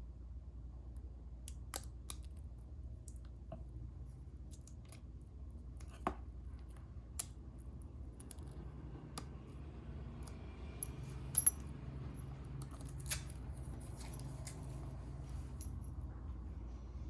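Scattered small clicks and clinks from handling a wristwatch and its metal parts, over a steady low hum. The loudest is a quick double click about eleven seconds in.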